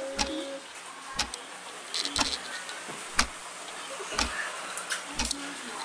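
Background music with a slow, even beat: a deep thump with a sharp hit about once a second over a steady hiss.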